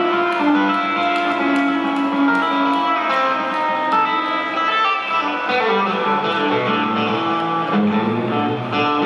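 Electric guitar playing a melodic intro line alone through the arena PA, single notes ringing and changing, with a few sliding notes about halfway through.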